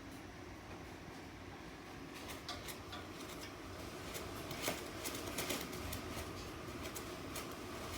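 Wind blowing outside, a steady low rush, with irregular light taps and rattles that start about two seconds in and grow busier and louder.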